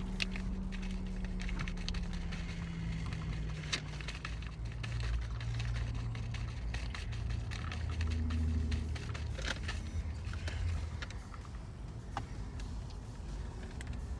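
Car engine idling: a steady low hum with a few light clicks scattered over it.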